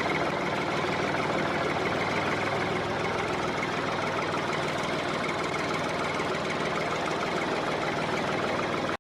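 Tractor engine running steadily with a fast, even chug, cut off abruptly at the end.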